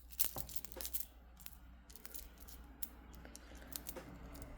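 Light, scattered clicks and taps of a black tourmaline and clear quartz bead bracelet being handled, with the stone beads knocking against each other, several close together in the first second and sparser after.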